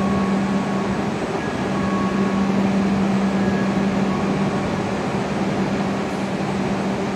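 Steady hum of a Hokuriku Shinkansen train standing still at the platform, its on-board equipment running: a constant low drone under an even hiss.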